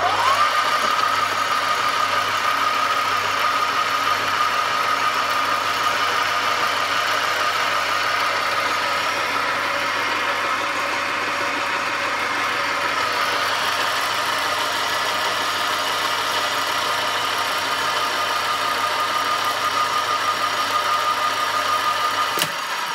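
BV20B-L bench lathe running under power with the carriage on leadscrew feed: a steady mechanical whine from the motor and gearing that settles at speed in the first half-second. A sharp click comes near the end.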